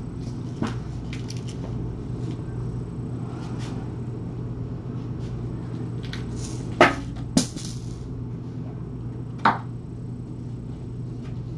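Steady low room hum, with a few sharp knocks and clicks: a faint one near the start, two louder ones close together about two thirds of the way in, and one more shortly after.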